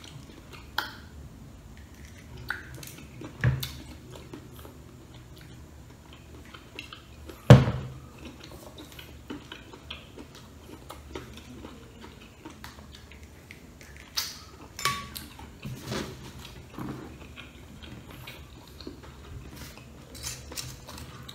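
Close eating-table sounds: a boiled balut eggshell being cracked and peeled by hand, with scattered clicks and taps and one sharp knock about seven and a half seconds in, over a steady low hum.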